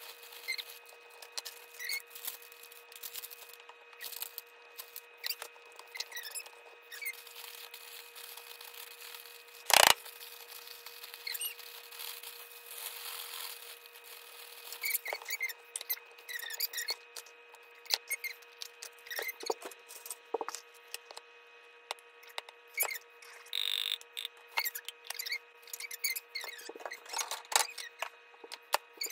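Plastic food bags crinkling and rustling as they are handled and opened, in many short crackles. About ten seconds in there is one much louder thump.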